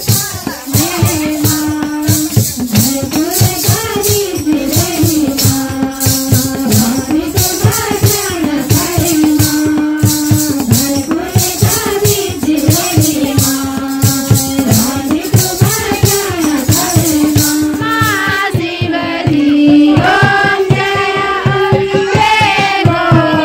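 Devotional kirtan singing: voices sing a repeating bhajan melody over a fast, even shaking rhythm from hand percussion. Near the end the percussion stops and the singing carries on.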